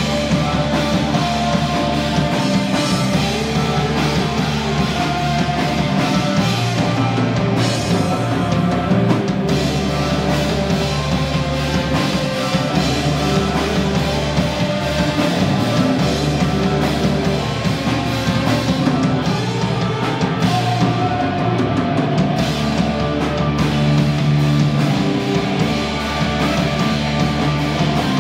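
Live rock band playing loud and steady: electric guitar, bass guitar and drum kit together.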